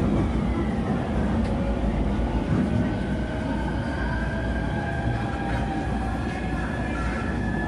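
Running sound inside a JR East E231 series motor car: the VVVF inverter and traction motor whine as several steady high tones, drifting slowly in pitch, over the rumble of wheels on rail.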